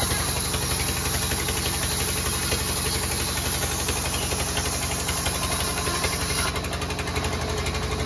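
Band saw mill running and ripping lengthwise through a large log slab, its drive giving a steady, rapid rhythmic throb under the sawing. The sound eases slightly near the end, as the board comes free of the blade.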